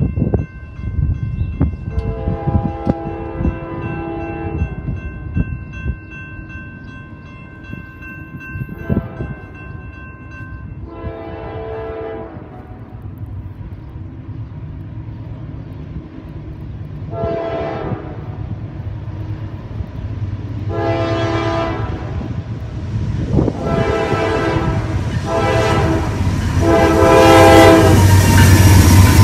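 Grade-crossing warning bell ringing, then a Norfolk Southern diesel freight locomotive's air horn sounding a series of blasts: two long ones, then shorter ones closer together. The low rumble of the diesel locomotives grows louder until they pass, loudest near the end.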